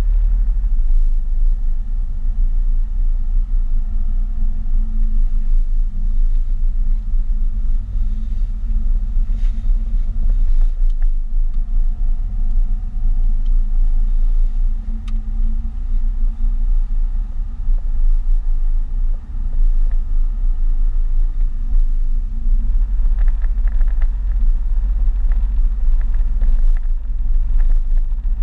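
Steady deep rumble inside a moving car's cabin: engine and tyres on a wet road, with a faint rising whine twice as the car picks up speed and a few light ticks near the end.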